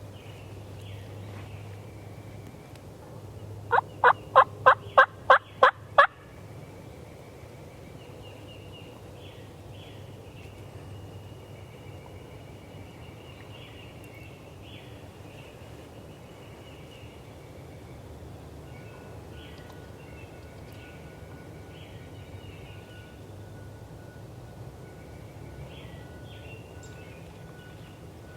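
A run of about eight loud, evenly spaced wild turkey yelps, about four notes a second, starting roughly four seconds in. Faint small-bird chirps follow.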